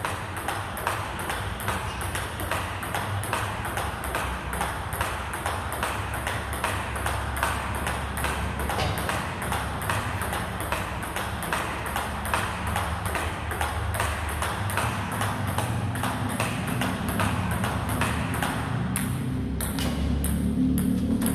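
Table tennis ball in a continuous rally, struck by the bats and bouncing on the table. One bat is a Butterfly Fan Zhendong ALC blade with Dignics 09C rubber. The hits make an even run of sharp clicks, two or three a second.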